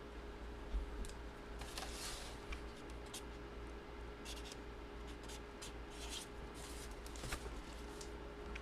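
Faint rustling and scratching of hands handling packaging, in short irregular bursts, over a low steady electrical hum.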